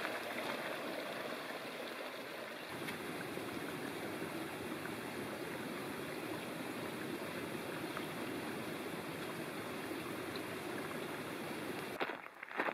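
Small upland burn running over rocks and stepping stones: a steady rush and trickle of water. The water sound drops away abruptly near the end.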